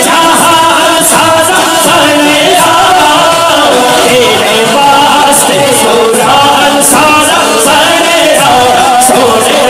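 Male voices singing a naat, an Urdu devotional song in praise of the Prophet, unaccompanied by instruments.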